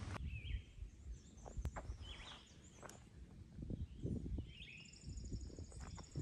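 Wild birds chirping in short separate calls, with a rapid high trill near the end, over scattered soft low thumps.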